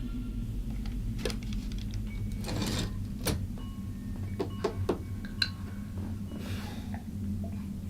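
Irregular single clicks and knocks, about half a dozen, with two short rustling or scraping sounds, over a steady low hum.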